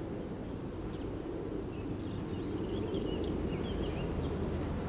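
Outdoor ambience: a steady low rumble with a bird chirping in short calls, mostly in the second half.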